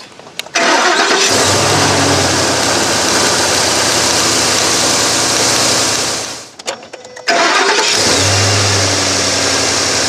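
2011 Ford F250's 6.2-litre gas V8 engine running, with its front coil-on-plug leaking spark through a faulty boot and arcing to the thermostat housing. The engine sound starts abruptly about half a second in, drops away briefly a little past halfway, then comes back abruptly.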